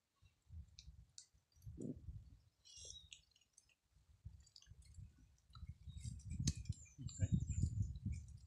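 Close mouth sounds of someone eating a ripe star apple: wet chewing, sucking and lip clicks on the soft pulp, irregular and heaviest about six to eight seconds in.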